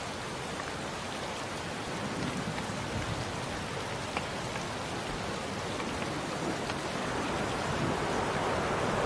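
Steady rain falling, with individual drops ticking on a surface. Near the end it gives way to a denser, smoother rushing hiss.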